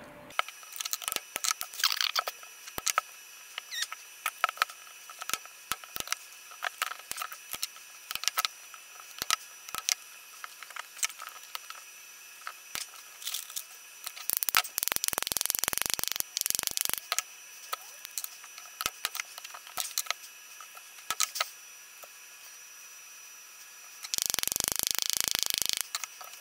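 Hand tools working on a cured carbon fibre and resin moulding: scattered clicks and taps, with two stretches of harsh scraping lasting a few seconds, one about halfway through and one near the end.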